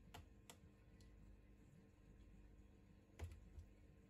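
Near silence with a few faint, light clicks and taps as the plastic housing parts of a smartphone are handled during disassembly. The sharpest click comes about three seconds in.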